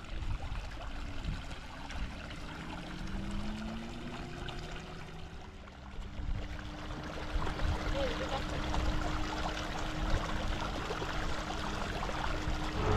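Shallow stream of water trickling and splashing over stones, a steady running-water sound.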